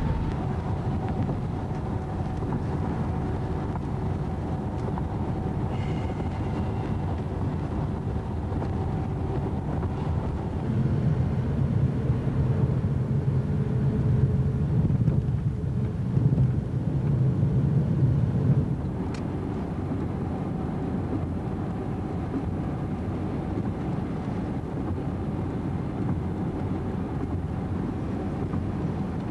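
Toyota Corolla sedan on the road: steady engine and tyre rumble. It grows louder with a deeper hum for several seconds in the middle, then settles back to the steady rumble.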